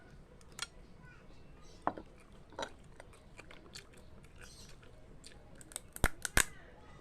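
A person eating: scattered crunching and sharp cracking clicks, with two loud cracks in quick succession about six seconds in.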